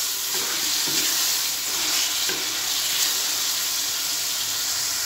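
Pieces of tinda (round gourd) sizzling in oil and masala in an aluminium kadai, with a spatula scraping and stirring them now and then as they are sautéed (bhuna).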